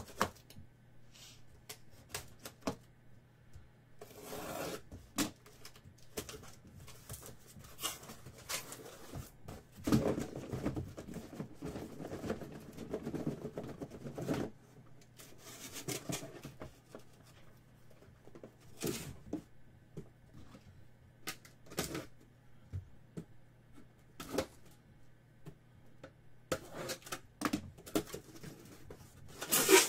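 Trading card boxes and their packaging being handled and opened: scattered clicks and taps of cardboard, with a longer stretch of rustling about ten seconds in.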